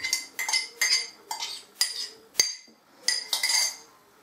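A metal spoon clinking repeatedly against glass and ceramic dishes as steeped raisins are scraped into a mixing bowl: about nine short, ringing clinks at an irregular pace.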